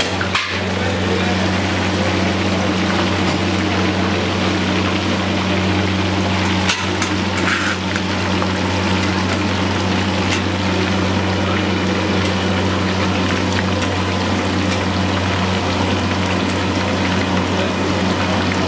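Chicken deep-frying in hot oil, a steady sizzle over a constant low hum, with a few light clicks of pieces being handled.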